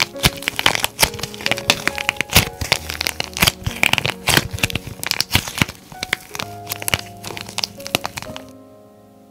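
Dried plaster clay pieces being squeezed and broken by hand: a dense, fast run of sharp cracks and crumbling crackles that stops about a second before the end. Soft piano music plays underneath.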